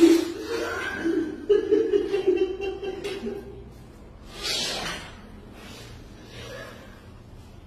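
A person's voice, held and wavering without clear words for about the first three seconds, then a short rushing burst near the middle, over a steady low background hum.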